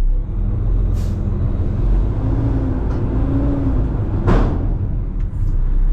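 Kenworth T880 dump truck's diesel engine running steadily under way, with a faint rising-and-falling whine in the middle. One short, sharp burst sounds about four seconds in.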